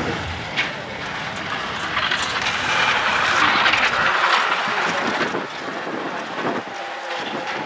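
Greyhound race passing the trackside rail: a rushing, rattling noise that swells about two seconds in and eases off after about five seconds.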